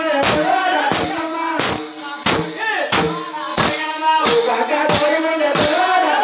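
Devotional folk music: a steady struck beat about three times every two seconds, with small hand cymbals jingling and a group of voices singing or chanting over it.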